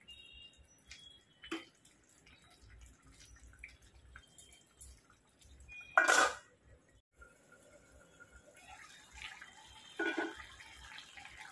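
Minced mutton simmering in a steel pressure-cooker pot, faint bubbling with light clinks of a steel ladle against the pot. About six seconds in, one loud short metallic clatter as the steel lid is handled, and another knock of the ladle near the end.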